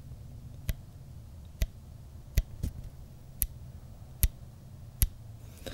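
Elevation turret of a Horus HoVR 5-20x50 rifle scope turned click by click, with seven sharp, light detent clicks about one every 0.8 seconds, two of them close together. The clicks are crisp and evenly spaced, the sign of precise, consistent turret detents.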